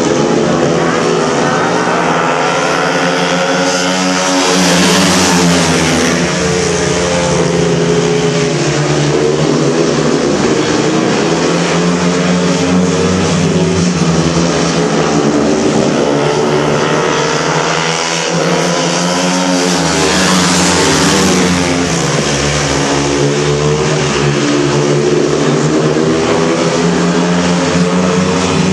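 A pack of speedway motorcycles racing round the track, their 500cc single-cylinder methanol engines running loud with the pitch rising and falling through the bends. The sound swells twice, about a fifth and three quarters of the way through, as the riders pass closest.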